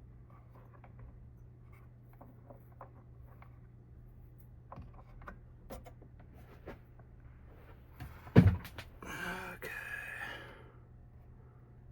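Light clicks and taps from handling small computer parts. About eight seconds in there is a single sharp knock, followed by a rushing sound lasting about a second and a half.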